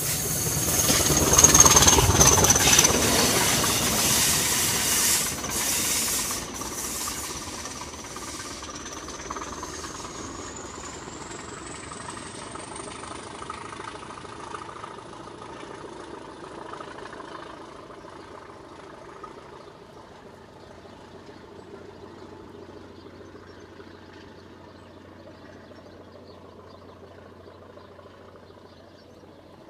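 Class 20 and Class 44 'Peak' diesel locomotives running past close by, loudest about two seconds in, with a high whistle that dips and then climbs as they draw away. The rumble fades steadily over the following seconds, leaving a faint low hum.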